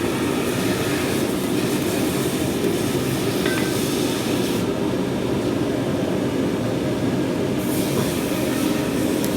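Blacksmith's forge running with a steady roar; a higher hiss in it drops away for a few seconds in the middle.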